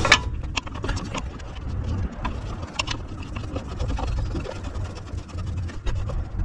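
Scattered light clicks and scrapes of a hand working the step bolt into the Airstream step mechanism from behind, against the trailer's sheet-metal underbelly, over a steady low rumble.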